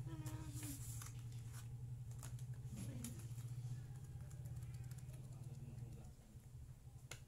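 Pages of a paperback album photobook being turned and handled: scattered paper rustles and soft clicks over a steady low hum that fades about six seconds in.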